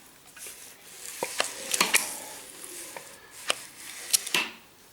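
Irregular metallic clicks and taps from a Hyundai G4NB engine being turned over by hand during assembly, just after the timing chain tensioner has been released.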